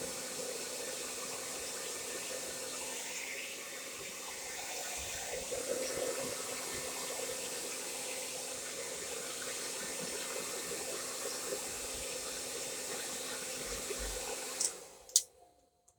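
Babyliss hair dryer running at its top fan speed: a steady rush of air with a low motor hum. It cuts off suddenly near the end, followed by a single click.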